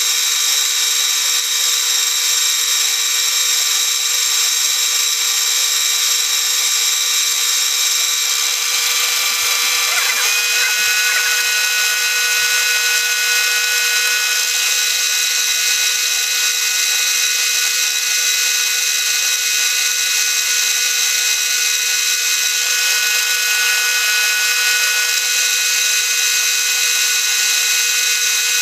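Milling machine spindle running a 3/4-inch end mill through a light cut in 316 stainless steel: a steady machine whine with several held tones. About ten seconds in, some of the tones step slightly higher.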